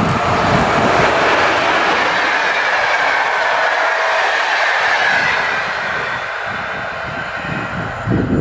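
Electric-locomotive-hauled passenger train passing close by at speed: the steady rush and clatter of wheels on rail as the carriages go past, with a faint high whine falling in pitch. The sound eases off slightly near the end.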